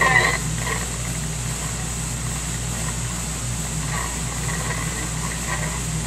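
CB radio receiver between transmissions: steady static hiss over a low hum, with faint fragments of distant signals coming through about four seconds in.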